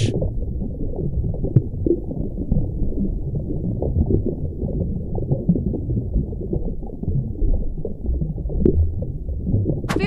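Underwater ambience picked up by a camera beneath the sea: a steady, muffled low rumble with faint crackling and no high sounds at all.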